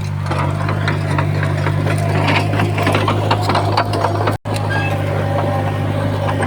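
Komatsu D31P crawler bulldozer's diesel engine running with a steady low drone, with frequent clanking and rattling from its steel tracks and blade. The sound cuts out for an instant about four and a half seconds in.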